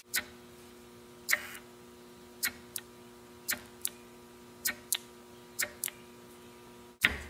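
Light, sharp clicks, mostly in pairs about once a second, over a steady hum, with a louder knock near the end.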